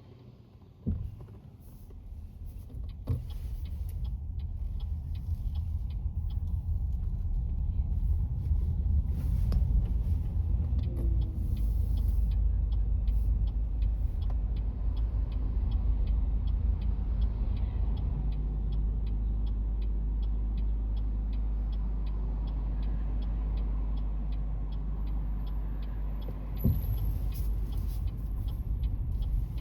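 Car driving on a city road, heard from inside: a low, steady rumble of engine and tyres that builds over the first few seconds as the car gets moving, with faint regular ticking about twice a second and a couple of sharp clicks.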